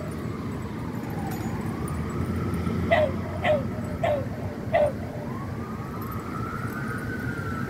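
An emergency-vehicle siren wails, slowly rising and falling in pitch, over a steady low rumble. A dog barks four times in quick succession about three seconds in.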